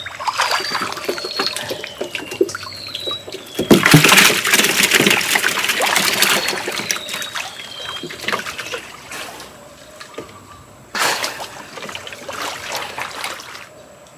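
Water splashing and sloshing as hands and arms work through shallow muddy water groping for fish. The splashing is loudest from about four seconds in, with another short burst about eleven seconds in.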